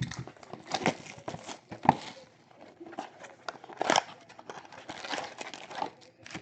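Trading-card packs and packaging being handled: irregular crinkling and rustling of wrappers with a few sharp tearing and clicking strokes.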